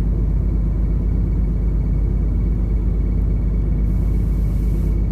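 Steady low rumble of a large ship underway, its engine and machinery heard from the bridge, with a faint steady whine. A brief faint hiss comes about four seconds in.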